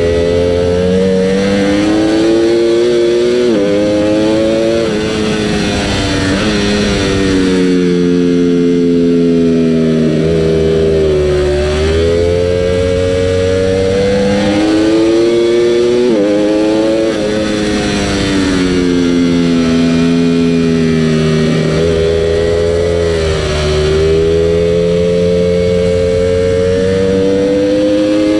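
Ducati Panigale V4 R's 998 cc V4 engine heard onboard at track speed, its note climbing under acceleration, then dropping sharply or sagging several times at gear changes and braking. Wind rush sits under the engine.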